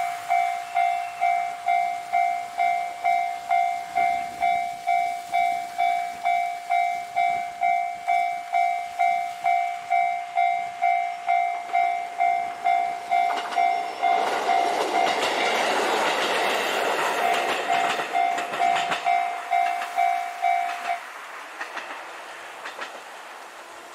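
A warning bell rings steadily about twice a second while a train passes: the rumble of the train swells from about halfway through and fades. The bell stops near the end.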